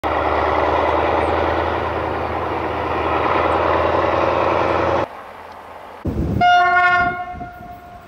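DE24000-class diesel-electric locomotive's engine running loudly, cut off abruptly about five seconds in. About a second later there is a short low burst and then a single blast of the locomotive's horn, several tones sounding together, lasting under a second and fading with echo.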